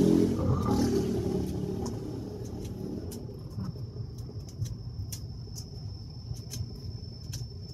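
A low motor rumble with a steady pitch fading away over the first two seconds. After it comes a fainter steady low rumble with a thin high whine and scattered light clicks.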